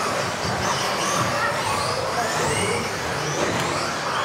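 Several electric RC off-road buggies racing together, their motors whining up and down in pitch as they speed up and slow down, over the steady din of the hall.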